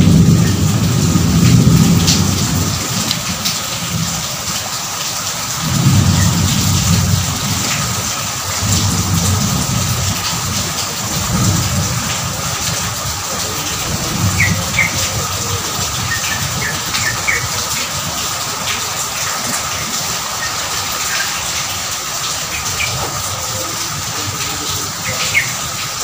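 Steady heavy rain with rolls of low thunder, the strongest at the start and others following through the first half. A few faint short high chirps come around the middle and near the end.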